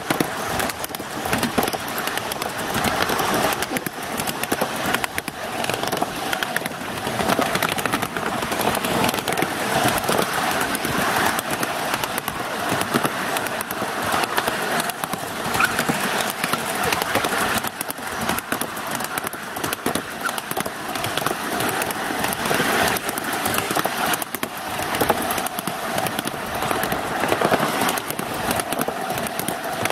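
Ride-on miniature railway cars rolling along the track, their wheels and couplings giving a continuous rattle and clatter.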